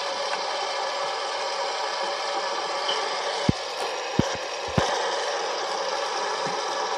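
Fidget spinner's bearing whirring steadily as it spins, with three short soft knocks a little past halfway.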